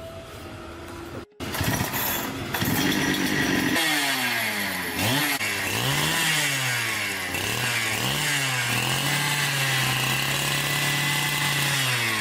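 Two-stroke Stihl chainsaw engine running loud and high, revved up and down several times, then held steady at high speed. A short quieter passage with steady tones comes before it starts.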